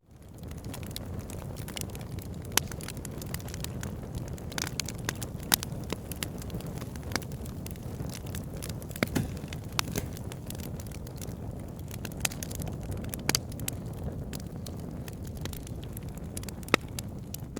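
Campfire burning, with irregular sharp pops and snaps of wood over a steady low rumble of flames. The sound cuts out for an instant right at the start and fades back in.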